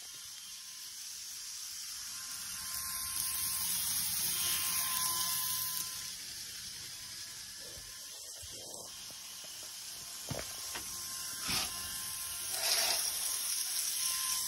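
Model train running on sectional track, its motor and wheels giving a steady hiss that swells about a third of the way in and then eases off, with a few light knocks in the second half.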